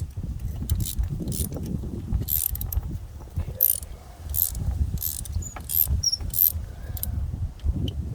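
Ratchet turning a long 14 mm spark plug socket to loosen a spark plug, a short burst of ratchet clicking on each back-swing, repeated about ten times. Low wind rumble on the microphone runs underneath.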